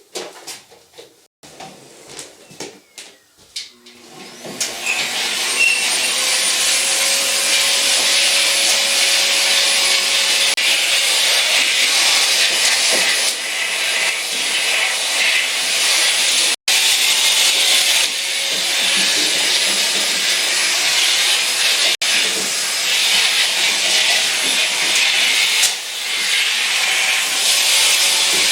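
A few light knocks, then about four and a half seconds in a motor-driven tool starts and runs steadily with a loud, rushing whir.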